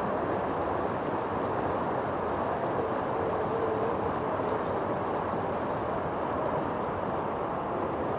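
River water rushing steadily over shallow rapids, an even, unbroken wash of white water.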